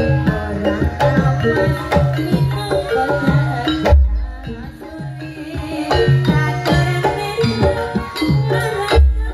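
Live jaranan music: a gamelan-style ensemble with kendang hand drums and ringing tuned metal percussion playing a fast, dense rhythm. Deep low strokes land about four seconds in and again near the end.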